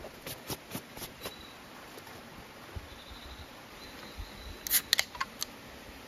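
Light clicks and taps from handling folding camp gear, several in the first second or so, then a sharper cluster of clicks about five seconds in.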